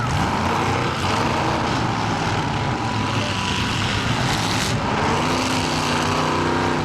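Demolition derby cars' engines running hard and revving, with their pitch rising and falling over a steady loud engine din.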